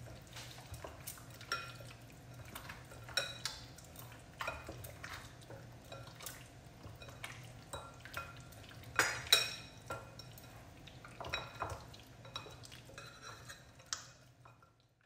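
Metal spoon clinking and scraping against a glass mixing bowl while mutton is worked by hand into a yogurt marinade: irregular light clinks, the loudest about nine seconds in.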